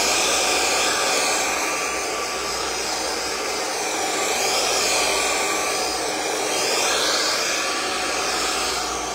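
Handheld hair dryer blowing at a steady rush, blow-drying long curly hair, swelling and dipping slightly in loudness as it is moved around the head.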